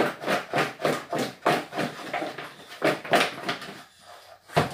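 Sliced raw potatoes being tossed in a plastic bowl to coat them in oil and spices, a quick run of rhythmic shakes about four a second that slows after a second or so, then a sharp knock near the end.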